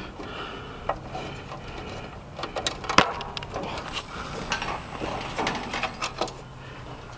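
Hand tools and sheet-metal parts of an air conditioner's outdoor unit clicking, knocking and rattling as it is taken apart, with a sharp knock about three seconds in, over a faint steady low hum.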